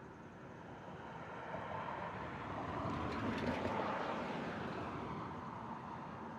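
A single road vehicle passing by: its engine and tyre noise build up, peak about three and a half seconds in, then fade away.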